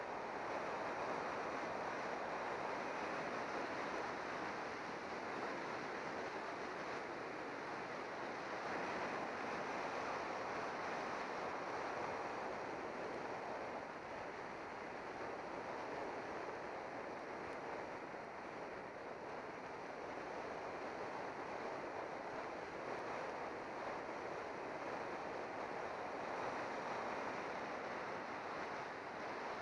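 Steady rush of wind over the camera's microphone as a road bike descends at speed, easing slightly midway through.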